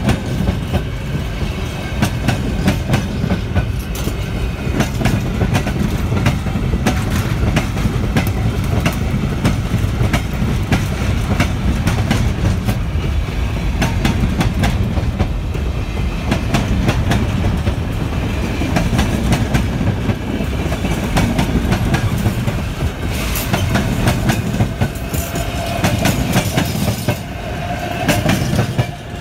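Empty freight wagons passing close at speed, their wheels rumbling and clattering in a rapid, continuous clickety-clack over the rail joints.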